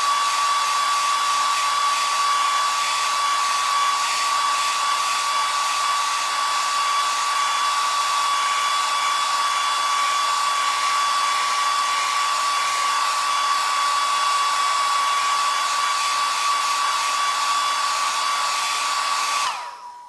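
Hair dryer running steadily: a rushing hiss of air with a steady high whine from the fan motor. Near the end it cuts out, and the whine dips slightly as it dies away.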